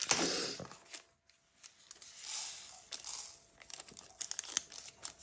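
Crinkling and tearing of small plastic bags of diamond-painting crystals being handled and opened, in two rustling spells, followed by a few light clicks.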